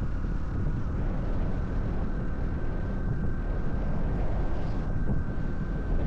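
Honda 125 cc single-cylinder Cub motorcycle riding at a steady pace: the engine and exhaust run under wind rumble on the camera's microphone, with a faint steady high whine.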